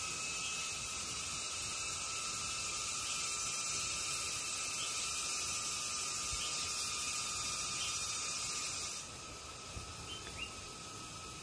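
Insects chirring steadily in several high-pitched layers. The highest layer cuts off suddenly about nine seconds in, and a few faint ticks follow.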